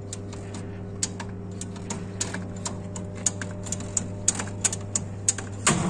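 Spring-charging mechanism of an ABB ring main unit's circuit breaker clicking as its charging handle is pumped slowly by hand, about two or three sharp clicks a second, unevenly spaced, winding up the closing spring. A steady low hum sits underneath.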